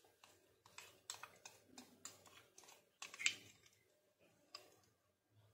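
Faint taps and scrapes of a spatula against a bowl as thick mayonnaise dressing is scraped out onto shredded cabbage and carrots. The taps come irregularly, with a louder knock about three seconds in.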